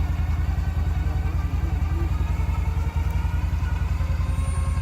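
ATV engine running steadily with an even, rapid low pulsing.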